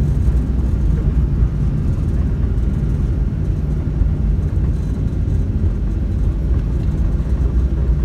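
Steady low rumble inside the cabin of a Boeing 737-800 rolling along the runway after landing: engine noise and the wheels on the pavement.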